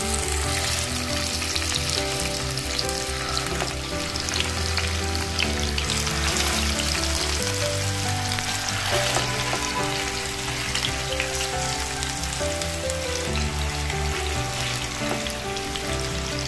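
Marinated rohu fish pieces shallow-frying in hot coconut oil in a nonstick pan: a steady sizzle with scattered sharp pops as more pieces are laid into the oil.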